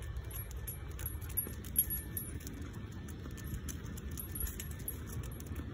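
Light metal jingling from a walking dog's leash clip and harness, in short scattered ticks, over a low rumble of wind and handling noise on the phone microphone.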